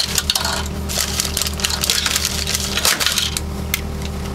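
A dense run of sharp clattering and crackling knocks, as of objects being handled and set down, lasting about three and a half seconds, over a steady low hum.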